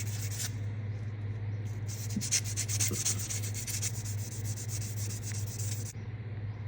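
Blade of an Opinel No.8 pocket knife being rubbed with an abrasive to give it a brushed finish. It makes quick scratchy back-and-forth strokes: a short burst at the start, then a steady run of rapid strokes for about four seconds that stops abruptly near the end.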